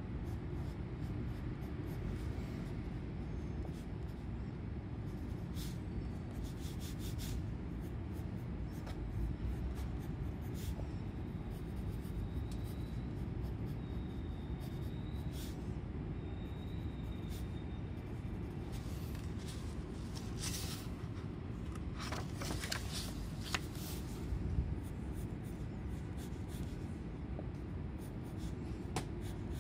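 Wooden pencil scratching on sketchbook paper in short intermittent strokes, over a steady low hum. A flurry of quicker, louder strokes comes about two-thirds of the way through.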